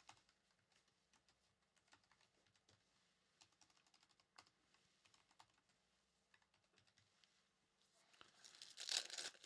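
Near silence with faint, scattered light clicks and taps. A short rustle comes near the end.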